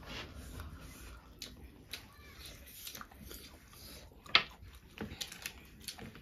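Mouth noises of eating: chewing with scattered small clicks and smacks, and one sharper click a little over four seconds in.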